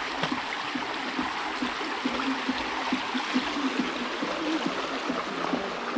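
Shallow creek running over rocks and stones, a steady rush and babble of water.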